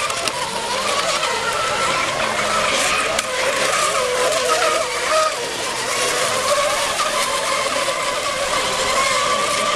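Several radio-controlled mono-hull racing boats running flat out, their motors whining in several wavering pitches over the hiss of hull spray.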